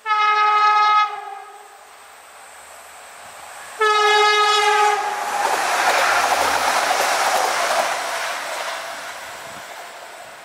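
Stadler Flirt diesel multiple unit sounding two horn blasts of about a second each, on one pitch that dips slightly as each ends. It then passes close by with a rushing rumble that fades as it moves away.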